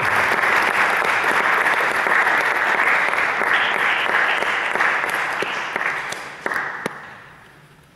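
Audience applauding, a dense steady clapping that dies away over the last couple of seconds, with a few final single claps near the end.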